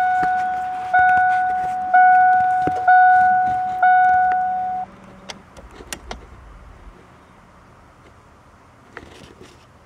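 1993 Ford Ranger dashboard warning chime ringing about once a second as the ignition is switched on, each ding fading before the next, then stopping about five seconds in. A few faint clicks follow.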